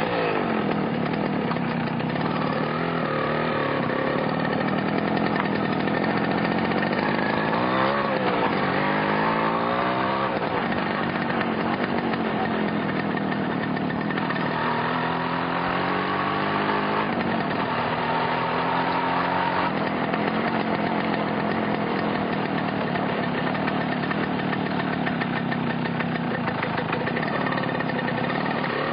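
Yamaha motorcycle engine running steadily, with the revs rising and falling several times: around eight to ten seconds in, again from about fifteen to nineteen seconds, and once more near the end.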